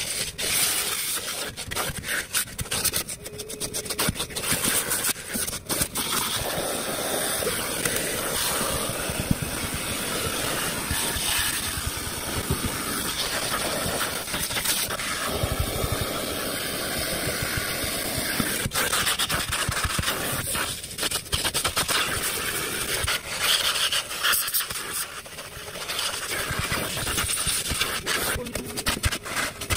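Henry canister vacuum cleaner running steadily while its metal wand is worked over the car's floor carpet. Many short clicks and rattles come through as grit is drawn up the wand.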